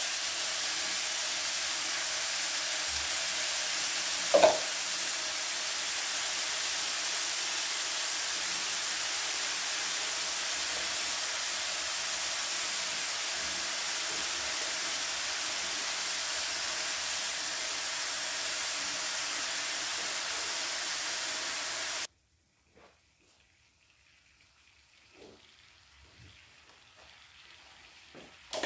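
Marinated steak sizzling on a Korean barbecue grill pan over a portable burner: a steady loud hiss with one short bright clink about four seconds in. The sizzle cuts off abruptly about 22 seconds in, leaving only a few faint taps.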